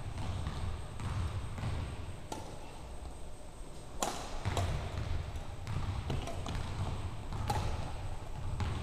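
Badminton rally: sharp racket strikes on the shuttlecock about every one to two seconds, over the thud of players' footfalls on a hardwood gym floor.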